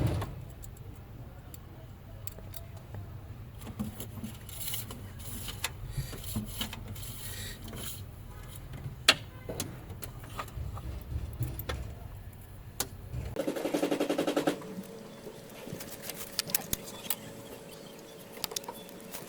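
Light metallic clicks, taps and clinks of hand tools and injector parts being handled while the fuel rail is worked down onto the direct injectors. A steady low hum runs under them and cuts off suddenly about two-thirds of the way in, followed by a brief fast buzzing rattle.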